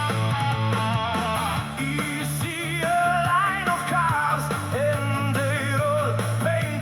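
Rock song with strummed guitar and a singing voice.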